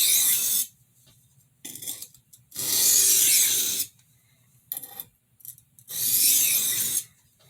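Steel kitchen utility knife blade scraping along a 240-grit medium whetstone in sharpening strokes. There are three long hissing strokes of about a second each and one short one, with small clicks between as the blade is repositioned.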